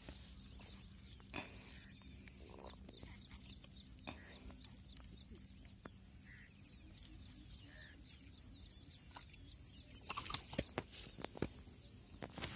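A small animal's short high chirp repeated evenly, about three times a second, faint, stopping near the end. A few rustles and soft thumps in the grass as the landed snakehead fish flops and is handled on its line.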